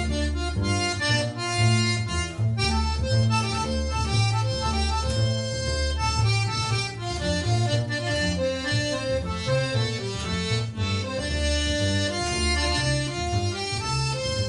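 Live instrumental music from an accordion, guitar and bass trio, the accordion carrying the melody over a steady pulse of bass notes.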